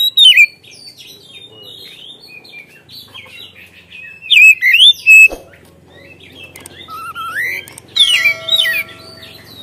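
Oriental magpie-robin singing a varied song of loud whistled phrases that slide up and down, in bursts at the start, about halfway through and near the end, with quieter warbling between them. A single sharp click comes about halfway.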